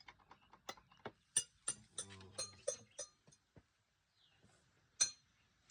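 Irregular light clicks and taps, several a second, with a faint voice about two seconds in and a brief lull before a sharper click near the end.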